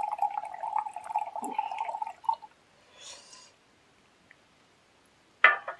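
Whisky poured from two glass bottles at once into a glass beer mug: a steady stream holding one pitch that stops about two seconds in, then a few drips. A short knock near the end.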